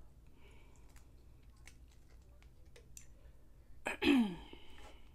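Mussel shells clicking lightly against each other and the glass dish as fingers sort through them, a few scattered clicks. About four seconds in, a short voiced sound from the eater, falling in pitch, is the loudest thing.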